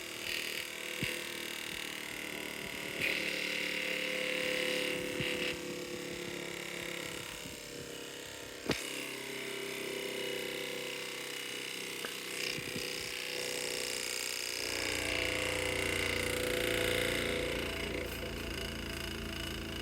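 Zubr PST-200 bench grinder's electric motor running with a steady hum, its pitch wavering slightly, and one sharp click about halfway through; the low part of the hum grows stronger near the end.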